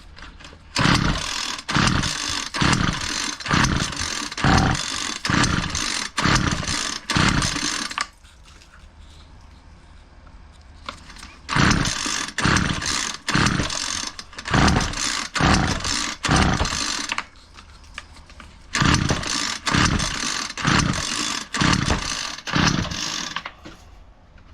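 Homelite 26cc two-stroke string trimmer being pull-started: three runs of quick recoil-starter pulls, each pull a short cranking burst, with the engine turning over but never catching. The owner has a feeling he flooded it.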